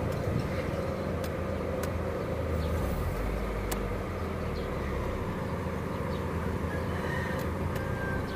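Honda Fit heard from inside the cabin while driving: a steady engine and road hum. The low rumble swells briefly around three to five seconds in, and there are a few faint clicks.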